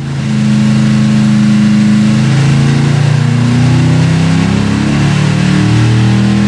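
A Gen II LT1 357-cubic-inch small-block V8 with a solid roller cam running on an engine dyno. Its pitch holds steady, then shifts in a few small steps.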